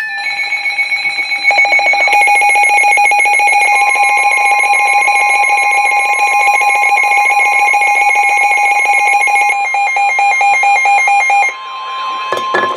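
Midland WR-400 weather radio sounding its loud, rapidly pulsing multi-tone alert alarm for a severe thunderstorm warning. About four seconds in, the steady 1050 Hz NOAA Weather Radio warning tone joins it. The radio's alarm stops a second or so before the end, and the steady tone runs on alone briefly.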